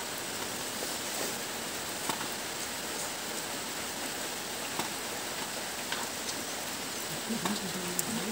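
Steady hiss of rain with a few faint clicks; a voice starts near the end.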